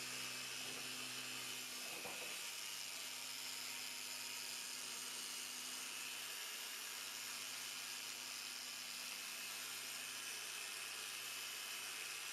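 Small handheld electric orbital sander-polisher with a round pad whirring steadily against a frosted plastic headlight lens, over a steady high hiss. Its motor hum shifts in pitch about two seconds in.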